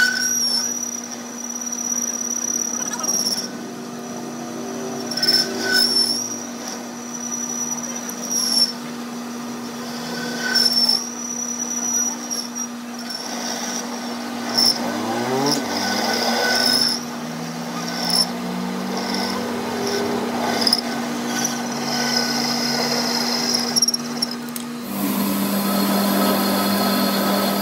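Metal lathe turning a steel part: the motor and spindle hum steadily while the cutting tool peels off chips, with a high, thin cutting squeal that starts and stops again and again. Near the end the sound changes abruptly to a steadier, fuller running noise.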